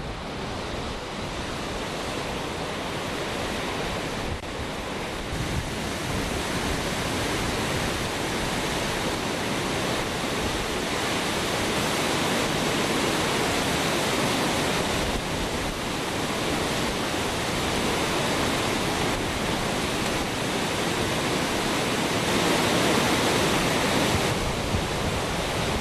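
Steady rush of water from the Hukou Waterfall on the Yellow River, pouring down between its ice-covered cliffs.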